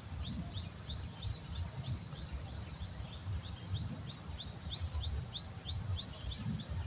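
Outdoor nature ambience: a steady high insect drone, with a short chirp repeating about three times a second, over a low rumble.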